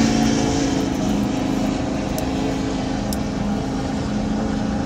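Ford 6.7 Powerstroke diesel pickup's engine held at steady high revs during a burnout, heard from inside the cab as the rear tyres spin and smoke.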